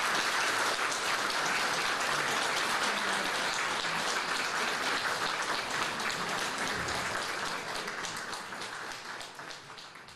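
An audience applauding, a dense steady patter of many hands clapping, which fades away near the end.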